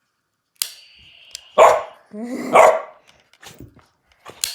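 Maltipoo barking twice, two sharp barks about a second apart. Before them, a click followed by a brief high steady whine, and another click with a whine near the end.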